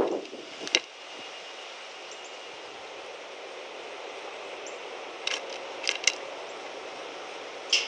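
A handful of short, sharp clicks from a red-winged blackbird pecking at sunflower seeds on a wooden board feeder: one about a second in, three between five and six seconds, and one near the end, over a steady faint outdoor hiss.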